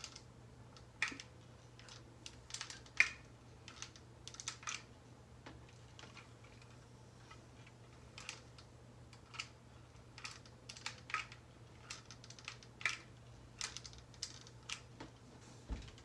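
Hair crimping iron being clamped shut and opened on sections of hair: irregular light clicks and rustles, a few sharper ones, over a faint steady low hum.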